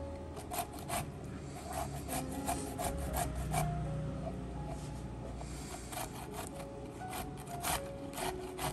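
Zucchini being grated on a flat stainless-steel hand grater propped on a wooden cutting board: a run of quick rasping strokes, a short pause around the middle, then more strokes.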